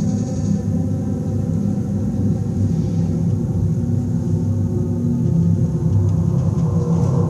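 Contemporary chamber ensemble of woodwinds and live electronics holding a dense cluster of sustained low tones, with fainter held notes above; a higher note enters near the end.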